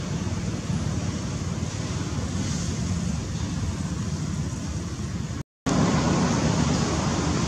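Steady outdoor background rumble and hiss, strongest in the low end, with no distinct events. It cuts out completely for an instant about five and a half seconds in and comes back slightly louder.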